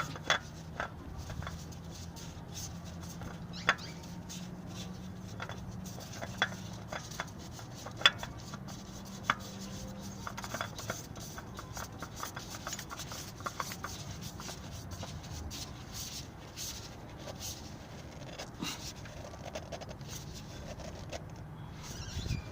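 Spin-on oil filter being hand-threaded and hand-tightened onto a 2005 Hyundai Tiburon 2.0L engine: hands rubbing and gripping the filter, with scattered light clicks and knocks. A faint low hum runs through roughly the first half.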